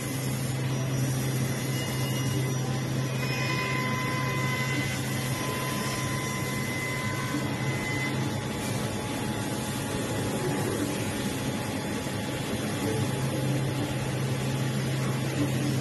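Multi-spindle CNC woodworking machine (drilling, milling and tenoning) running: a steady low mechanical hum with a thin high whine from the spindle motors.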